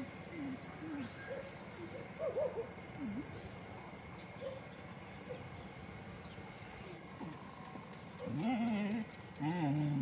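Dogs whining: short, scattered high whines, then louder, wavering whines in the last two seconds.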